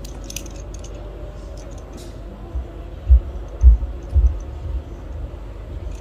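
Faint small metallic clicks in the first two seconds as the adjusting bolt and lock nut of an aluminium manual cam-chain tensioner are turned by hand. Several dull low thumps of handling follow in the middle, over a steady low hum.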